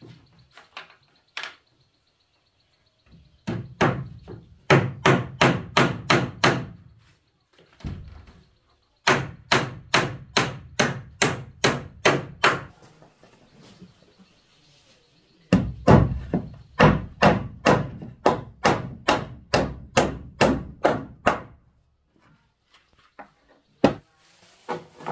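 Hammer nailing down the wooden planks of a bed platform: three runs of sharp, loud blows, about three a second, each with a dull wooden thud, with short pauses between runs and a single blow near the end.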